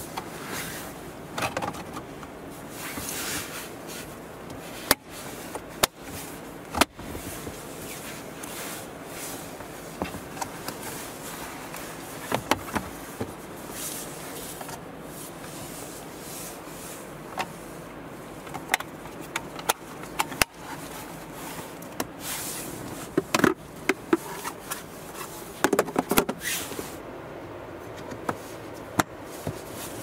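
Plastic centre-console trim pieces being handled, with scattered sharp clicks and knocks and some scraping and rubbing over a steady background hiss.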